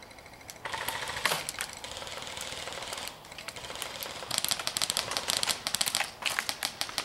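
Airsoft guns firing: fast clattering bursts of shots, the densest run about two thirds of the way in, then single shots spaced a fraction of a second apart near the end.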